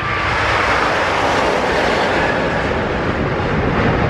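Airbus A350-1000's twin Rolls-Royce Trent XWB-97 turbofans running at takeoff thrust: a loud, steady jet noise.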